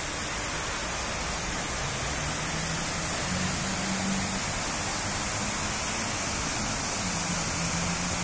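Fountain of Wealth's central water jet and the curtain of water pouring from its bronze ring, splashing into the basin: a steady rush of falling water.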